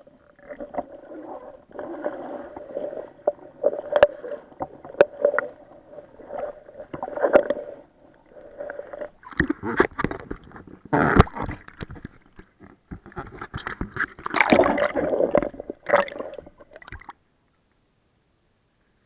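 Water sloshing and knocking against an action camera's waterproof housing, muffled underwater at first with a steady hum beneath. Louder splashes and knocks follow as the camera rides at the surface, and the sound stops suddenly near the end.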